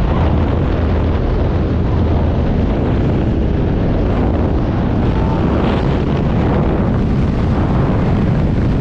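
Loud, steady drone of a small single-engine propeller plane's engine, with rushing air and wind buffeting the microphone inside the cabin.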